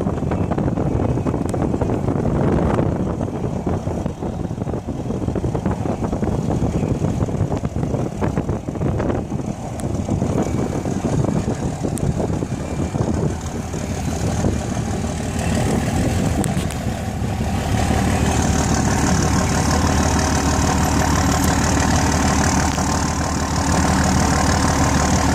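A motor vehicle's engine idling with a steady hum, settling in about two-thirds of the way through. Before that there is a rough, rushing noise.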